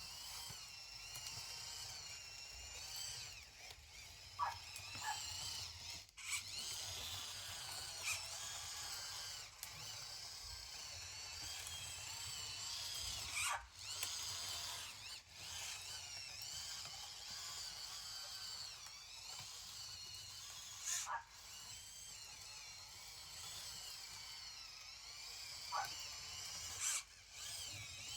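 Small electric gear motors of a radio-controlled construction model whining, the pitch rising and falling over and over as the throttle changes, with a few short clicks.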